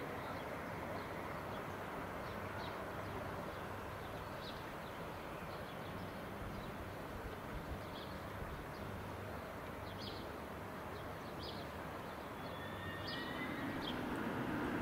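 Small birds chirping in short calls every second or so over a steady low background rumble of a railway station. The rumble grows louder near the end.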